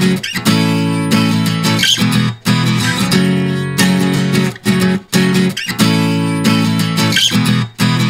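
Background music: a guitar strumming chords in short, choppy phrases.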